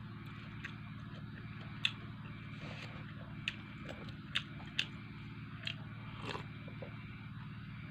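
Mouth sounds of someone eating rice and fried fish by hand: chewing with several short, sharp smacks, over a steady low hum.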